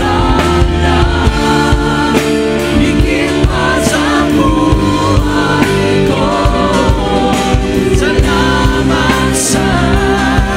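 Live church worship band playing a gospel song: several singers holding long sung notes together over electric and acoustic guitars and drums with a steady beat.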